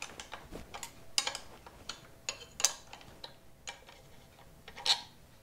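Small metal hand tool clicking and tapping against a motorcycle's chrome handlebar clamp and its bolts: a string of irregular light metallic clicks, the loudest about a second in, two and a half seconds in, and near the end.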